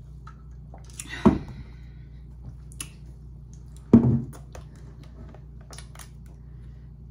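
A rhinestone-studded drinking tumbler set down on a tabletop with a solid knock about four seconds in, the loudest sound here. Another sharp knock comes about a second in, with small clicks and mouth sounds scattered between.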